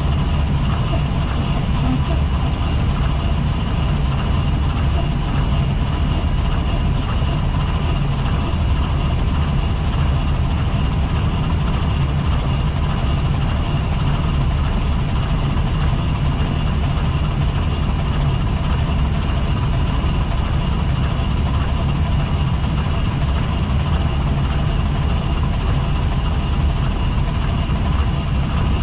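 Steady flight-deck noise of an Airbus A320 on final approach: a continuous low rumble of airflow and engines with a couple of faint steady whining tones over it.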